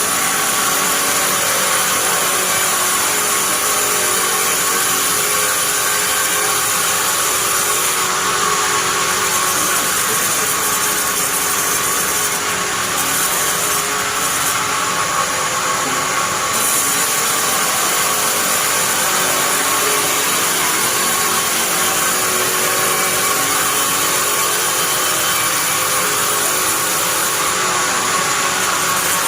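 Sawmill bandsaw machine running steadily, with a constant high whine over a broad mechanical hiss.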